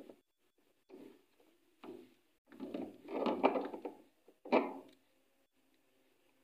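Pliers clamping and twisting a thin wire: a few short knocks and scrapes about a second apart, with a longer clatter of handling in the middle.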